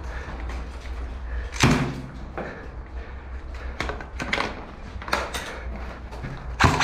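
Sharp knocks and cracks at irregular intervals over a steady low rumble, the loudest about a second and a half in and another near the end, each followed by a short ring in the concrete rooms.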